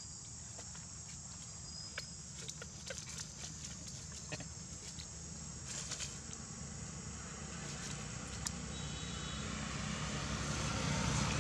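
A motor vehicle's engine running steadily and growing louder toward the end, with scattered small clicks and rustles over it.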